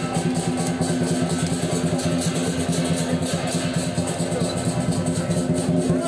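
Lion dance percussion ensemble of drum, cymbals and gong playing a fast, dense beat.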